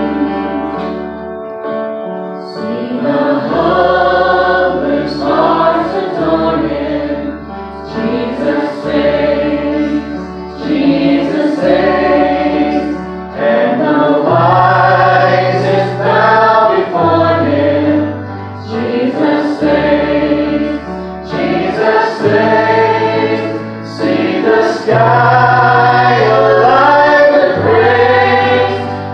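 A gospel vocal group, a man and several women, singing a hymn in harmony through microphones. Under them runs an instrumental accompaniment with a low bass line of long held notes that change every second or two.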